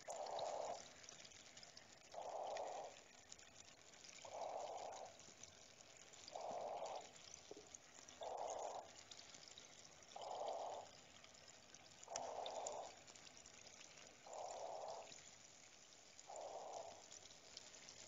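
Cave water ambience: a soft, steady trickle with scattered drips, and a muffled pulse that repeats about every two seconds.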